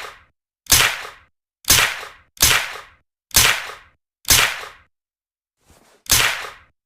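Suppressed Uzi submachine gun sound effect: single sharp suppressed shots, about one a second, each a crack with a short fading tail. There is a pause of about a second and a half near the middle, with a faint small pop at its end.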